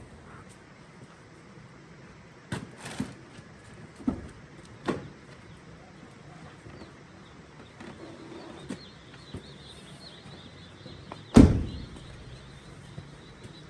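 Several sharp knocks and thumps, the loudest about eleven seconds in, with faint high peeping of day-old chicks starting about two-thirds of the way through.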